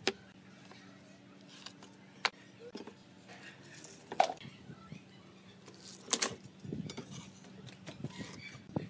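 Handling of hand tools on a wooden workbench: a metal try square, tape measure and pencil set down and moved on a pine board, giving a few sharp clicks and light knocks over a faint steady hum.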